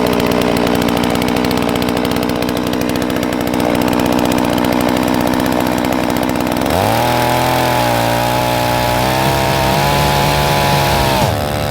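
92cc Holzfforma G660 chainsaw running hard in an Alaskan chainsaw mill. About two-thirds of the way through, its pitch rises quickly and then holds steady at a higher engine speed.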